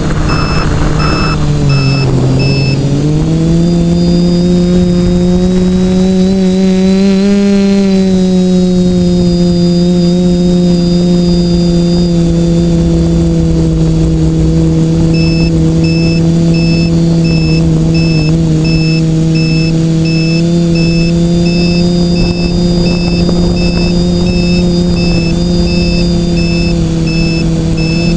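TBS Discovery quadcopter's four brushless motors and propellers humming steadily, heard from on board. The pitch dips about two seconds in, climbs back, swells slightly around seven seconds, then holds even, with a thin constant high whine above it.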